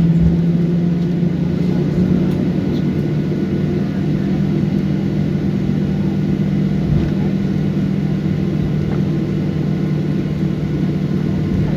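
Steady low drone of an airliner's jet engines at taxi power, heard from inside the passenger cabin as the plane taxis after landing, with a constant low hum under it.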